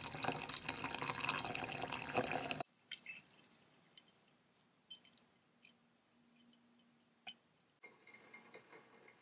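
Water pouring into a ribbed glass teapot of loose pu-erh tea leaves, a steady splashing rush that cuts off abruptly under three seconds in. After that there are only faint scattered drips and small clicks.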